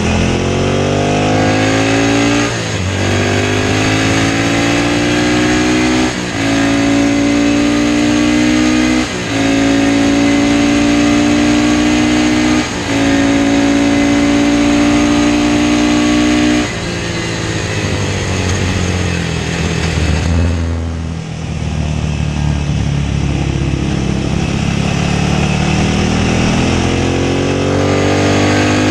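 Classic racing motorcycle engine at full throttle, pulling up through the gears with four quick upshifts, each a brief break before the note climbs again. About two-thirds of the way in the throttle closes and the note falls as the bike slows for a corner, then it accelerates hard again.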